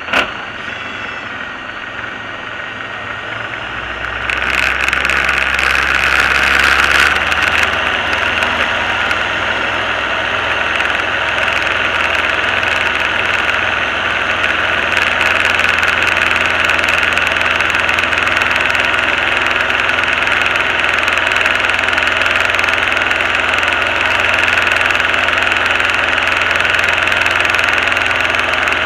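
Diamond DA20's piston engine and propeller heard from inside the cabin, stepping up sharply to full takeoff power about four seconds in and then holding steady through the takeoff roll and climb-out. A short click right at the start.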